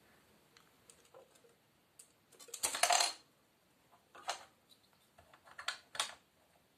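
Toy castle drawbridge of an Exin Castillos Serie Azul 3 being lowered, its small chains rattling and clinking: a dense burst of clinks about two and a half seconds in, then a few lighter clinks around four and six seconds.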